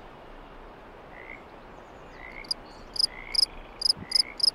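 Field cricket chirping: from about halfway in, a quick run of short, high, shrill chirps, a little under three a second. Under it runs a steady outdoor hiss with faint rising calls about once a second.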